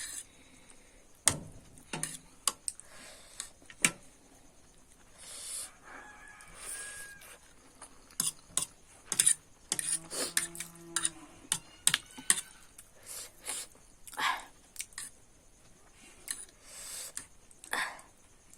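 Cutlery clicking and tapping against a dish during eating: an irregular string of short sharp clicks, thickest in the second half.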